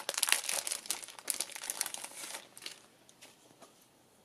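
Clear cellophane packaging crinkling as hands open the sleeve and slide printed paper out of it. It is dense for about the first two and a half seconds, then dies away to a few light ticks.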